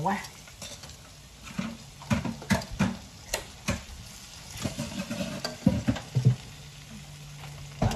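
Breaded cutlets frying in a pot of hot oil, with a steady sizzle. Metal tongs click and scrape against the pot and the pieces several times as they are turned, most of it in the first half.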